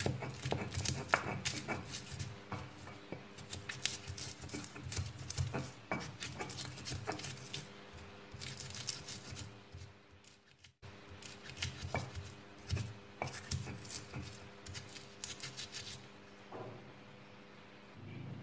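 Pestle knocking and grinding in a stone mortar, crushing shallots, garlic and kencur with irregular knocks and scrapes. It breaks off briefly about ten seconds in.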